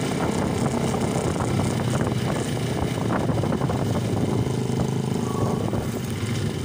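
Motorcycle engines running with a steady hum.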